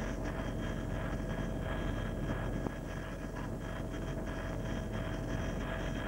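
Police helicopter's turbine engine and rotors heard from inside the cabin: a steady noisy drone with a few thin, steady whining tones. It drops slightly in level about two and a half seconds in.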